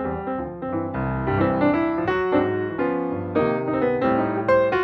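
Piano music: a keyboard melody of quickly struck notes over held chords.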